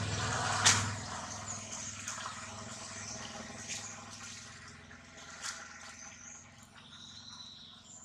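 Scattered crackles and snaps of dry leaves as a baby macaque scampers over leaf-strewn ground, the sharpest about a second in, over a faint steady low hum. A short high squeak rises and falls near the end.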